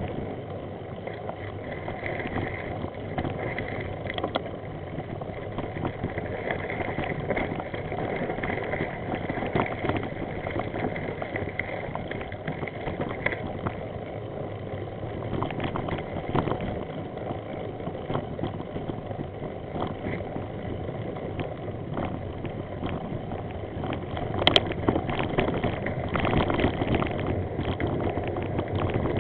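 Bicycle riding over a rough, broken concrete and gravel lane: steady rolling rumble with constant small rattles and clicks from the bike jolting over the surface, and a sharp knock near the end.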